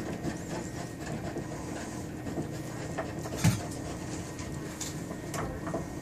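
Light clicks and taps of lock hardware being handled during installation, with one louder knock about three and a half seconds in, over a steady background hiss.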